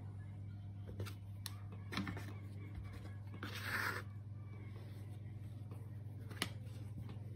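Soft rustling and patting as floured pieces of sticky ciabatta dough are picked up and turned in flour on a wooden worktop, with a few light taps and one sharp click near the end. A steady low hum runs underneath.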